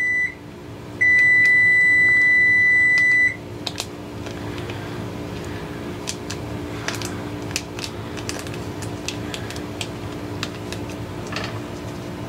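Cooking timer beeping for the roasting potatoes: a long steady high beep that breaks off briefly and sounds again for about two more seconds, ending about three seconds in. After it, light clicks and scrapes of a utensil and packaging at the pan over a low steady hum.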